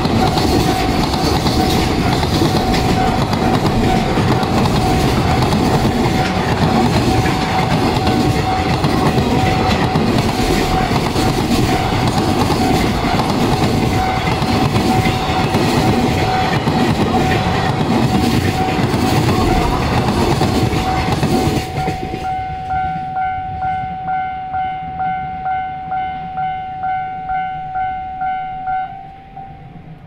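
Freight train of container wagons rumbling and clacking across a level crossing, with the crossing's warning bell ringing under it. About two-thirds of the way through, the train noise stops suddenly. The bell is then heard alone at about two strokes a second and stops shortly before the end.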